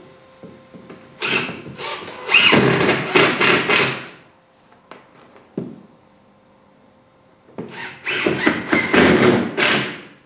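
Cordless drill with a long bit boring into wooden arch strips and a wood block, in two runs of about three seconds and two and a half seconds, with a few light knocks between them.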